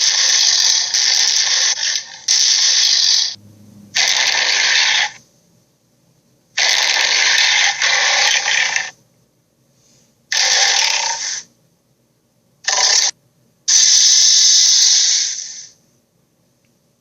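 Dragon sound effects: a string of about seven harsh, hissing growls, each from half a second to two seconds long, with silent gaps between.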